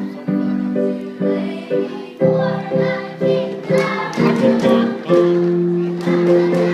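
A children's choir singing together with instrumental accompaniment, in a steady run of held notes.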